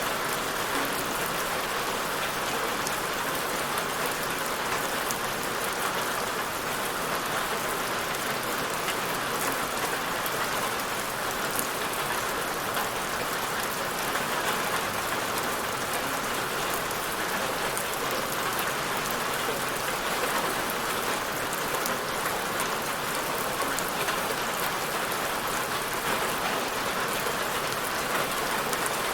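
Steady rain falling: an even hiss with many small raindrop ticks throughout.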